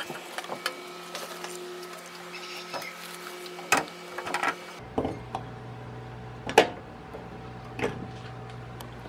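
Scattered metallic clicks and knocks from a brass rim lock on a wooden door being worked by hand, its knob turned and latch drawn back, about half a dozen clicks with the loudest about two-thirds of the way through. A steady low hum lies underneath, shifting in tone about halfway.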